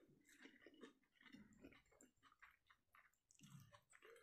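A person chewing a mouthful of fish curry and rice with the mouth close to the microphone: faint, irregular smacks and clicks.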